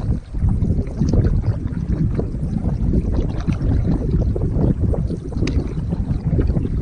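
Wind buffeting the microphone in a loud, steady low rumble, with choppy waves splashing against a canoe's bow.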